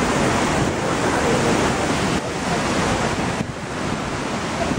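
Rushing water of a rocky stream, a steady loud hiss, with wind buffeting the microphone; the hiss eases off briefly a little past the middle.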